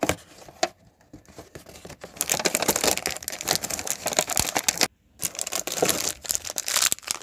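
Cardboard door of a Schleich advent calendar being pushed and torn open, with a couple of sharp clicks, then dense crackling of the plastic wrapper around the figurine inside as it is pulled out, with a brief pause about five seconds in.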